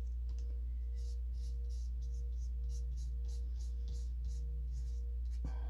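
Hand rubbing a glued paper piece flat onto cardstock: a run of soft, quick swishing strokes, about three a second, over a steady low hum.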